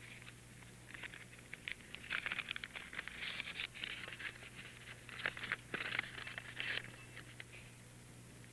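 Paper crinkling and tearing as an envelope is opened and a letter unfolded, in irregular crackling runs that stop about seven seconds in.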